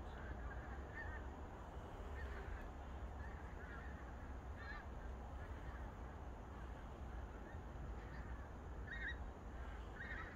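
A flock of migrating geese passing overhead, many birds honking in scattered calls throughout, a little louder near the end, over a steady low rumble.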